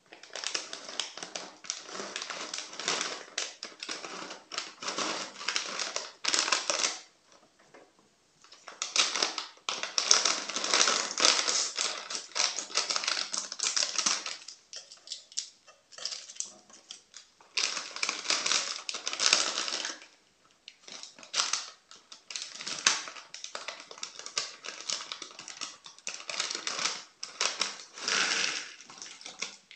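Crinkling and crackling of a foil-lined plastic snack bag handled in gloved hands, in bursts with short pauses. Scissors snip the bag open partway through, and near the end the puffed lattice potato snacks rattle out of the bag onto the plate.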